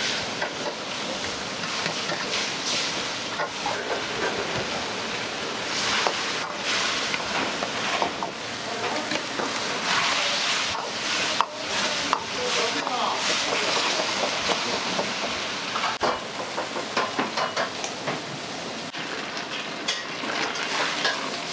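Food sizzling in a hot wok while a metal ladle stirs it, with repeated irregular clanks and scrapes of the ladle against the wok.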